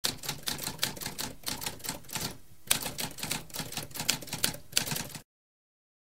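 Typewriter typing: a quick run of sharp keystroke clicks, with a brief pause a little past two seconds, stopping about five seconds in.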